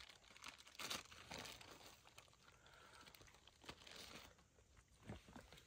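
Faint, irregular rustling and crinkling, broken by a few soft clicks about a second in, near the middle and near the end.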